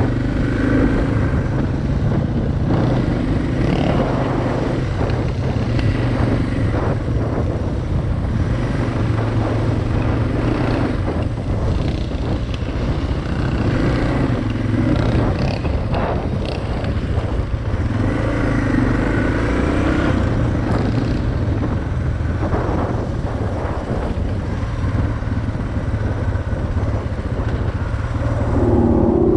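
Suzuki DR650's single-cylinder engine running under way, its revs rising and falling, with scattered clatter and knocks as the bike goes over rough dirt track.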